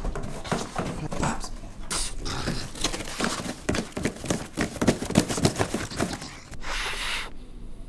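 French bulldog worrying a cardboard box in its mouth: a quick, uneven run of cardboard crinkles, scrapes and knocks, mixed with the dog's noisy snuffling breath. The crackling stops about six and a half seconds in, followed by a short hiss.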